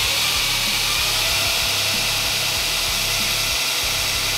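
Brodbeck Ironworks belt grinder running with its belt on, a steady high whine with belt hiss.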